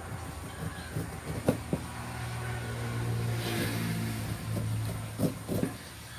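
A passing vehicle's low engine hum swells over the middle few seconds and then fades. Over it come several short, sharp knocks of a knife cutting through a pineapple, a few in the first two seconds and a couple more near the end.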